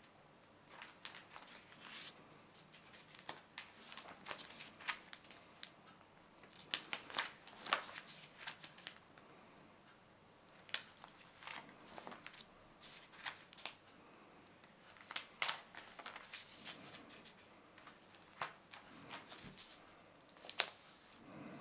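Clear plastic sleeve pages of a banknote album being turned and handled: irregular crinkles and clicks, busiest about a third of the way in, with one sharp click near the end.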